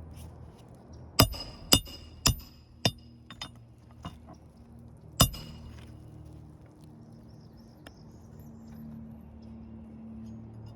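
Hammer blows with a sharp metallic ring, typical of nailing roofing shingles: four quick strikes about half a second apart, a few lighter taps, then one more strike a few seconds later.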